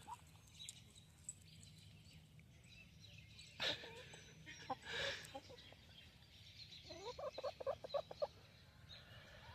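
Hens clucking faintly, with a couple of short calls and then a quick run of clucks about seven seconds in.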